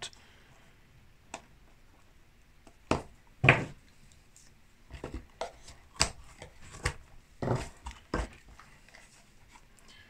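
Hands handling a small cardboard gift box tied with a double-knotted ribbon, with a knife brought in to cut it: scattered light taps, scrapes and knocks, the loudest a knock about three and a half seconds in.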